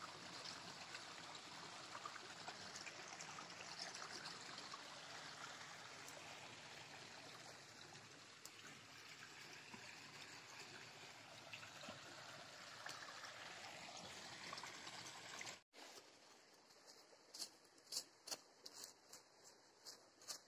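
A small stream trickling and running over rocks: a steady, low rushing. About three-quarters of the way through it cuts off abruptly, and a quieter stretch follows with a few sharp clicks and ticks.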